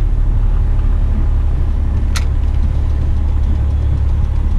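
Western Star truck's diesel engine running steadily at low speed, a deep, even sound heard from inside the cab, with one brief sharp high click about two seconds in.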